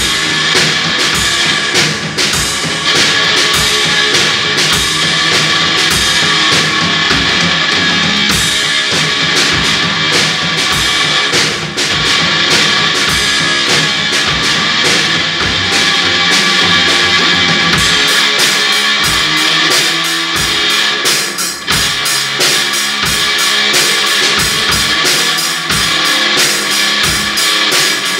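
Loud instrumental garage-rock jam: electric guitar over a steady drum-kit beat with bass drum and cymbals. From about eighteen seconds in, the deep low end drops back between the beats and the cymbals get brighter.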